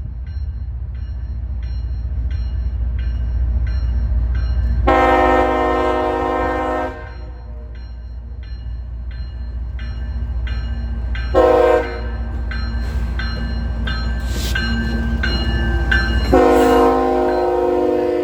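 CSX freight locomotive sounding its air horn over a steady low rumble of the train: one long blast, a short one, then another long blast. Before the first blast, regular clicks come through the rumble.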